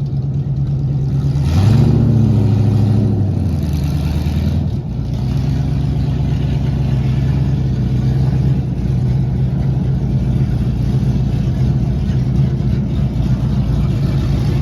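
NASCAR stock car engine idling. It gives one quick rev about two seconds in, then settles back to a steady, low idle.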